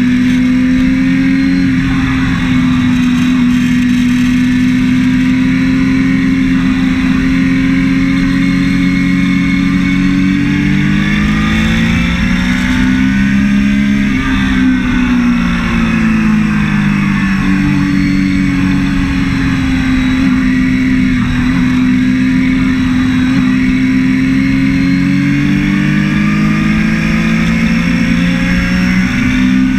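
Triumph Daytona 675's three-cylinder engine heard on board at speed, holding a steady high note over rushing wind. About halfway through, the note climbs and drops in steps through throttle and gear changes before settling steady again, and it dips briefly near the end.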